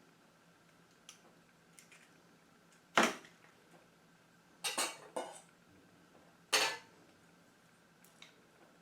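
Utensils and dishes knocking and clinking against a mixing bowl: four sharp hits in the middle stretch, each with a short ring, and a few light ticks around them.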